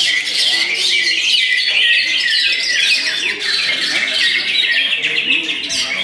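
Many caged songbirds singing at once: a dense, unbroken chorus of overlapping rapid chirps and trills.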